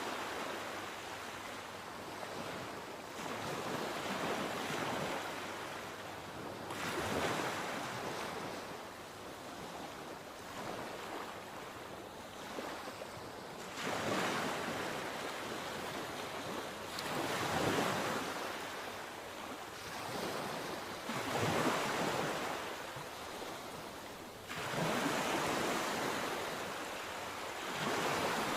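Sea waves breaking and washing on the shore, surging and falling back every three to four seconds.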